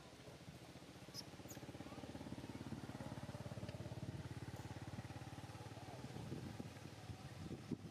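Faint engine of a passing motor vehicle, growing louder over the first few seconds and then easing off, with two short high squeaks about a second in.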